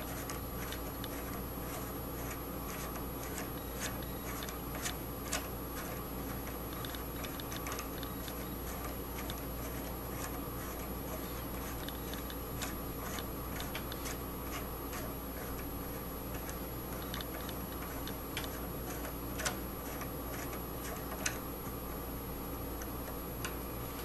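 Hand-turned Lego Technic mechanism: its plastic gears and axles click and tick irregularly as it turns, with a few sharper clicks standing out, over a steady low hum.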